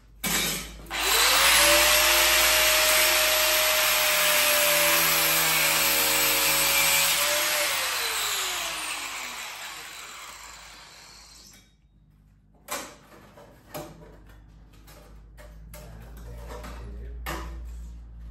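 Handheld electric power tool working on sheet steel: a brief blip of the trigger, then several seconds of loud grinding hiss over the motor's whine. After switch-off the pitch falls as the tool winds down. A couple of sharp knocks follow.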